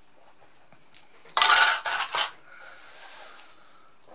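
A handful of dried butter beans clattering into a small container: one loud rattle about a second and a half in, lasting about half a second, then a couple of lighter clicks.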